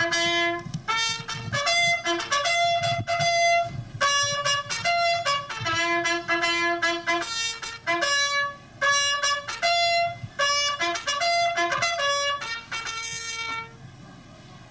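Trumpet playing a brisk tune of short and held notes, which stops shortly before the end.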